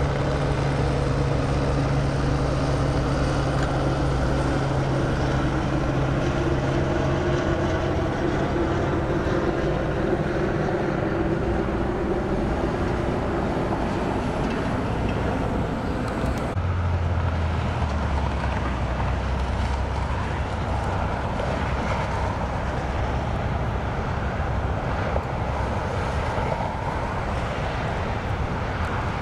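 A helicopter's engine and rotors running steadily, heard from on board as a constant low hum. Its pitch drops suddenly about two-thirds of the way through.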